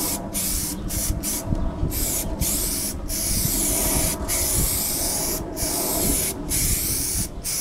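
Aerosol spray can of white primer hissing onto a plastic motorcycle fairing panel in repeated passes. The hiss breaks off briefly about ten times between strokes.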